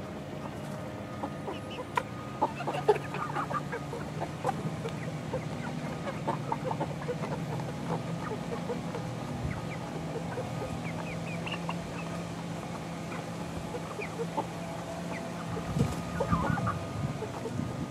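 A flock of 11-week-old chickens clucking and peeping, with many short calls scattered throughout, over a steady low hum.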